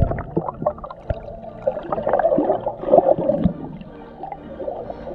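Muffled water sloshing and gurgling heard with the camera underwater, dull and cut off above the low and middle range, with scattered small clicks and a few louder swells of water movement.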